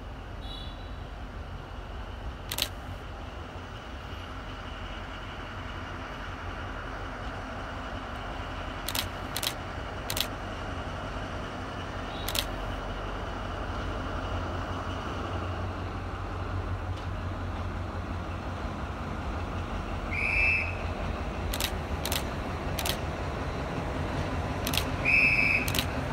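D10H (DFH21) diesel-hydraulic locomotive approaching slowly, its diesel engine a low rumble that grows steadily louder. Scattered sharp clicks run through it, and two short high squeals come near the end.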